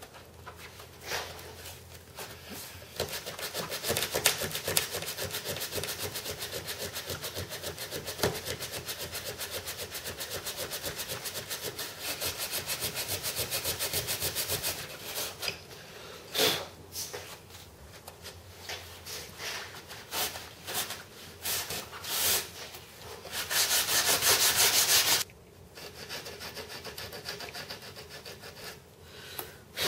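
Sandpaper stuck to a thin plastic strip rasping back and forth in the aileron hinge gap of a moulded glass-fibre wing, sanding a bevel under the skin edge so the aileron can fold under it. Quick, even strokes run for about twelve seconds from about three seconds in, then come sparser, with a louder short bout of sanding near the end.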